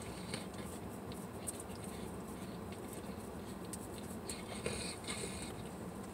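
Steady low hum inside a car cabin, with a few faint clicks and a brief rustle about five seconds in.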